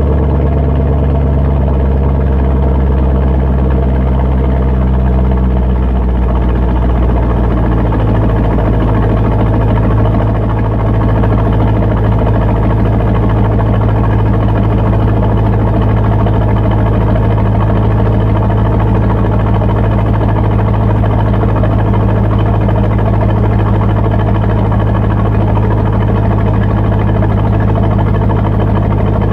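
C5 Corvette's 5.7-litre V8 idling after a cold start, a loud, steady low drone. The pitch of the drone shifts about eight seconds in.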